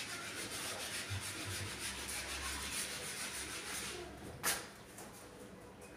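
Steady scratchy rubbing noise in quick, even strokes that fades out about four seconds in, followed by a single sharp click.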